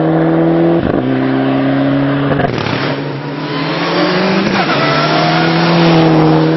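Mitsubishi Lancer Evo IX rally car's turbocharged four-cylinder engine running hard under load on a rally stage. The note breaks briefly about a second in and again around two and a half seconds in, as at gear changes, then climbs steadily.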